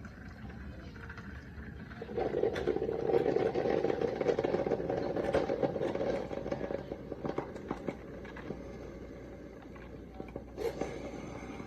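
Mr. Coffee single-serve coffee maker brewing, with water gurgling and sputtering amid small clicks. It grows much louder about two seconds in and eases off a few seconds later, leaving softer ticking and a short burst near the end.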